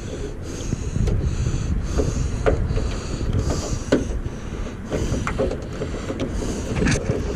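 Scattered small clicks and taps, about one every second, of door-handle parts and linkage being worked into place inside a truck door, over a steady low rumble like wind on the microphone.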